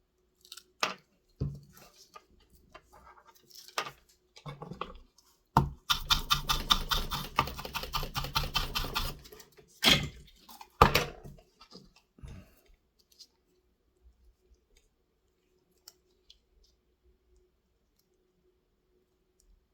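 Handling noises while working on a small drone circuit board: scattered clicks and taps of small parts and tools, with a rapid run of clicks lasting about three and a half seconds from about six seconds in.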